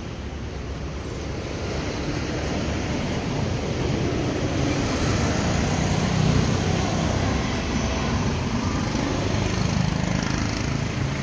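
Road traffic going by: a steady rush of engine and tyre noise with a low engine hum, swelling over the first few seconds and staying loud.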